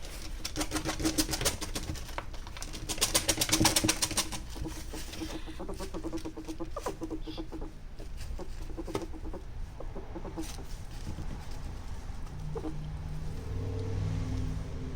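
Ferrets making rapid soft clucking noises, runs of quick clicks that are densest in the first four seconds and then come in sparser bits. A low steady hum comes in near the end.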